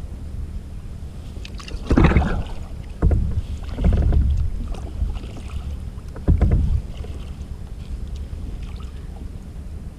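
Sea kayak paddle blades dipping and pulling through calm sea water: four splashing strokes in the first seven seconds, then the kayak gliding. A steady low wind rumble sits on the microphone throughout.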